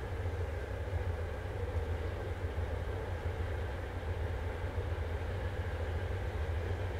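Diesel-electric locomotive of a freight train, a GE B39-8E, with its engine running as a steady deep rumble.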